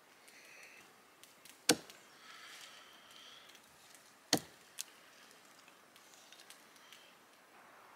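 Two sharp chops of a blade cutting through a squirrel carcass into a downed pine log, about two and a half seconds apart, with a smaller knock just after the second.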